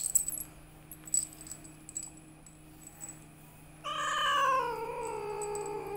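A domestic cat gives one long, drawn-out meow starting about four seconds in, its pitch sliding steadily downward. Before it there are a few faint clicks as the cat's harness is fastened.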